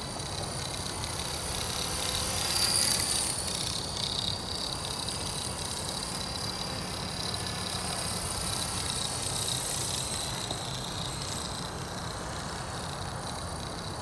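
Accurate 400 RC helicopter flying at a distance, a steady high whine from its rotor and drive that swells about three seconds in as it comes closer. It is running with the abnormal noise and vibration left by a crash.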